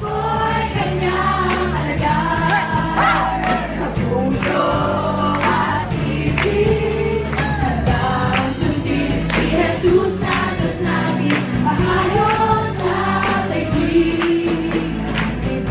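Christian worship music: a choir singing over a band with steady bass notes and a drum beat.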